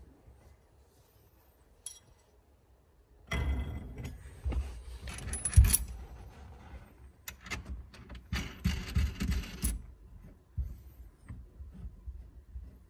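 Steel tools and parts clinking and rattling as a steering-column lock-plate compressor tool is handled and fitted over the steering shaft. The handling noise starts about three seconds in, has a sharp knock near the middle, and dies away to a few clicks about ten seconds in.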